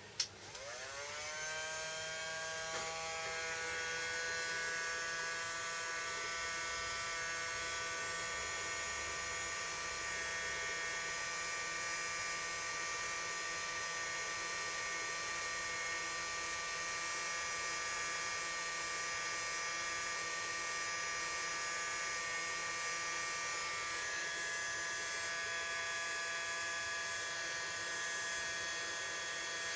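Hot air rework gun running: its blower fan spins up with a rising whine over the first second or two, then holds a steady whine over the hiss of the air, blowing onto a circuit board to reflow the solder under small surface-mount parts.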